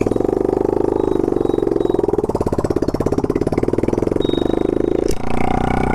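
TVS Apache RTR 200 4V's single-cylinder engine and exhaust running under way, a steady rapid firing beat. It dips briefly about five seconds in.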